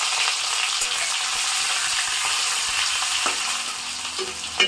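Sliced onions sizzling steadily in hot oil in a steel kadhai, with a steel spatula scraping and stirring them near the end.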